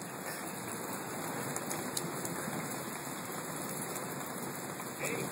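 Steady rain falling on wet pavement, an even hiss with a few faint drop ticks.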